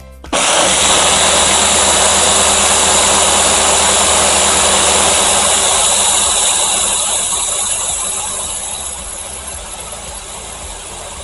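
Countertop blender switched on just after the start and running steadily, puréeing warm butternut squash sauce in a last whirl to make sure it is smooth. It grows gradually quieter over the second half.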